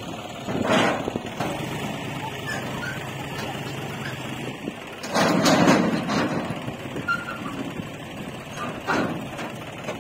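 Diesel engines of a JCB 3DX backhoe loader and John Deere tractors running steadily, with three louder rushing swells: about half a second in, about five seconds in (the loudest) and near nine seconds.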